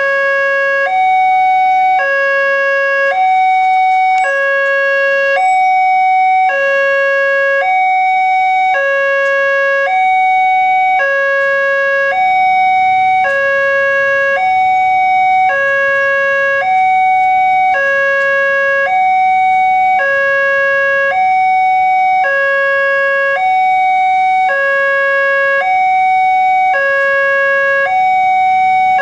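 Railway level-crossing warning alarm: an electronic two-tone signal switching between a lower and a higher tone about once a second, steady and loud. It signals that the crossing is closing for an approaching train.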